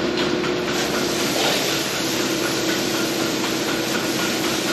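Standby generator running steadily under load, a constant engine drone with a steady hum, powering the dairy farm through a power outage.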